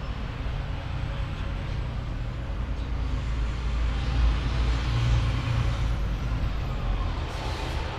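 A motor vehicle's engine running with a steady low rumble, swelling slightly about halfway through.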